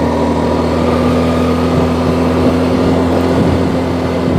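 Engine of a small vehicle being ridden, running steadily at an even pitch, heard from on board.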